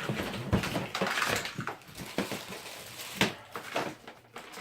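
A tangle of computer cables being pulled out of a cardboard box, rustling and clattering, with irregular knocks as plugs and connectors hit each other; the sharpest knock comes about three seconds in.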